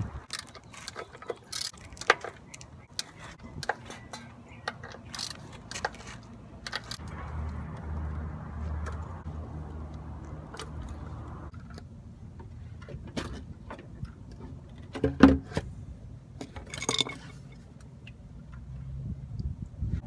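Metal hand tools and bolts clinking and clattering while working on an oil pan, in scattered sharp clicks with one louder clank about fifteen seconds in. A low steady hum runs for a few seconds near the middle.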